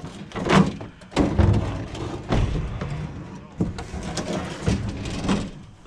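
A series of irregular knocks and bangs, like doors or boxes being handled around a truck, with low voices in the background.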